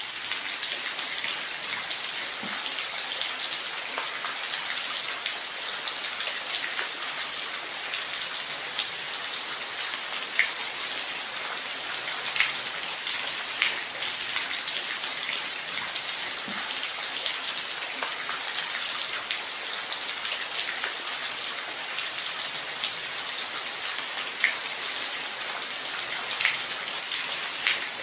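Steady rain falling, an even hiss with occasional sharper drops ticking out above it.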